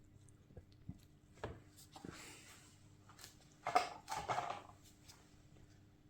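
Bicycle chains being handled: scattered faint clicks and a soft rustle, then a short burst of clinking chain links a little under four seconds in, as the new chain is laid against the old one to line up the links.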